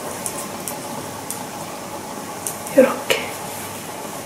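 Soft rustling of a knitted sweater being handled and turned to show its inside, with a few light clicks. A brief murmur of voice comes about three seconds in.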